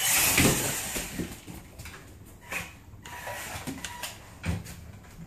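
Small 1/24-scale electric RC truck taking off across a vinyl floor, its motor and gears whirring loudly for about a second. Scattered knocks and scuffs follow.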